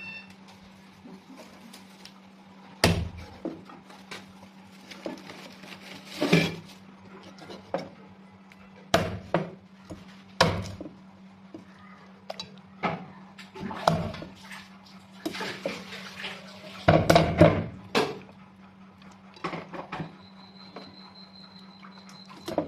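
Cleaver chopping raw duck on a thick wooden chopping block: irregular sharp chops, with a quick flurry of several strokes about 17 seconds in, over a steady low hum.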